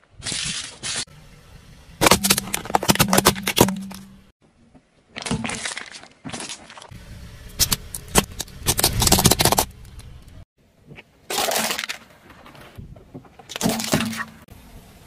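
Objects cracking and crunching as a car tyre rolls over them, in a series of short separate bursts with hard cuts between them, the loudest a few seconds in and again past the middle.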